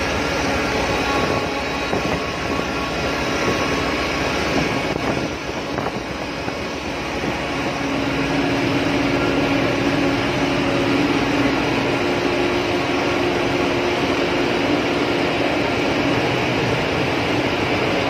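Steady, loud ship's engine-room machinery drone, with a low hum that grows stronger about eight seconds in.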